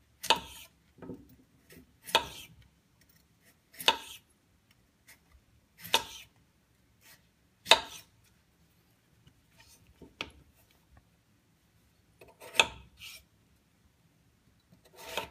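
Utility knife slicing through a peeled raw russet potato and knocking on a wooden cutting board: about eight separate cuts, each a short slice ending in a sharp tap, roughly two seconds apart.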